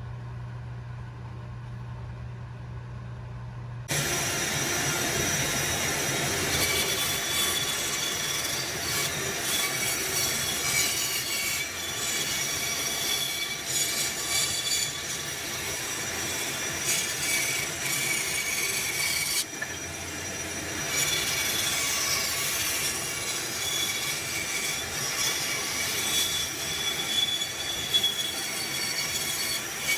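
Continuous abrasive scraping with high squealing tones, typical of restoration work on the hatchet. It starts abruptly about four seconds in, after a low steady hum, and breaks off briefly just before twenty seconds.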